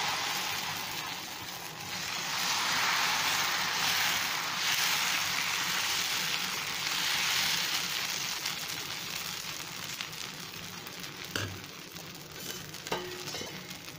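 Dosa batter sizzling on a hot tawa as it is spread thin in circles with a ladle. The hiss is strongest in the first half and fades toward the end, with a single click about eleven seconds in.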